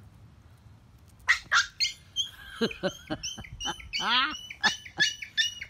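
Small fluffy puppy yapping, a rapid run of short high-pitched yips starting about a second in.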